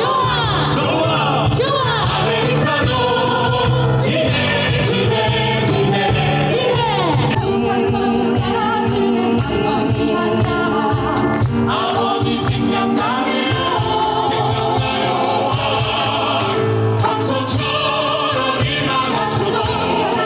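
Choir singing, sustained and continuous.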